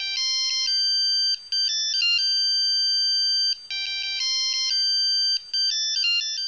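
A short, high-pitched electronic jingle like a phone ringtone: a bright melody of short and held notes, played through twice.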